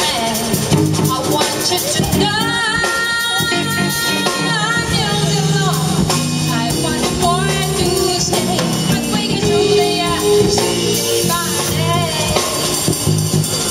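A female vocalist sings a jazz standard with a live band of electric guitar, electric bass and drum kit, holding a long wavering note a couple of seconds in.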